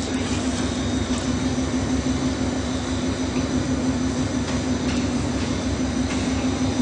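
Stretch film cast extrusion line running: a steady, even machine hum with one constant low drone.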